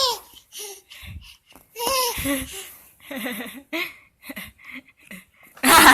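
Baby laughing in short separate bursts with quiet gaps between, ending in a louder burst near the end.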